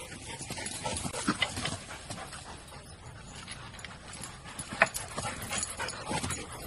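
A dog making short, separate sounds, with scattered knocks between them.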